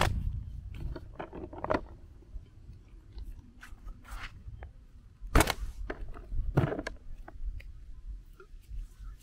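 Bait catapult being loaded with boilies and fired. There is crunching and rustling as the hard baits are handled in the pouch, and two sharp snaps of the rubber bands about a second apart, a little past halfway. Low wind rumble on the microphone at the start.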